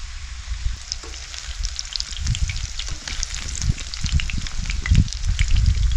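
Flour-coated snapper fillet pieces frying in hot oil in a pan: a steady sizzle with dense crackling spatters. Beneath it runs an uneven low rumble that gets a little louder in the second half.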